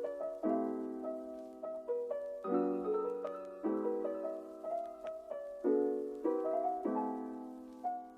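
Soft background music: a gentle piano track playing slow chords and a simple melody.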